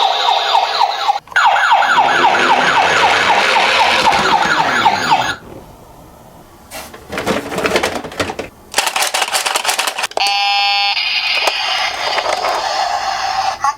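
Toy ambulance's electronic siren sounding in fast rising yelps, about four a second, then cutting off about five seconds in. Scattered clicks and knocks follow. A short electronic tone sounds about ten seconds in, before a siren-like sound starts again.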